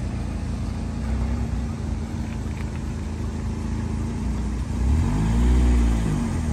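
Volkswagen Kombi van's engine running with a steady low rumble; about five seconds in the engine note rises and falls in pitch, the loudest part.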